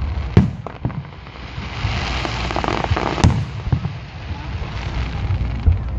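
Aerial fireworks shells bursting: a few sharp booms, the loudest about three seconds in. In the middle there is a stretch of dense crackling from glittering stars.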